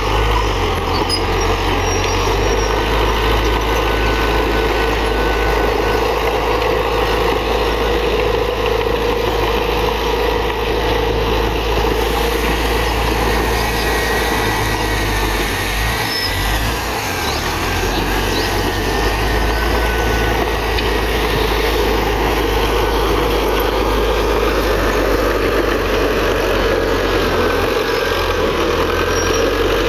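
Heavy diesel engine running steadily under load, typical of a Komatsu D31PX crawler bulldozer working soil, with faint thin high squeals at times.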